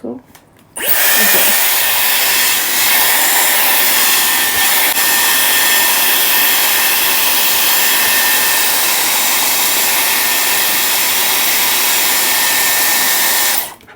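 Dyson hair styler blowing air steadily with a thin high whine over the rush. It is switched on about a second in and off just before the end.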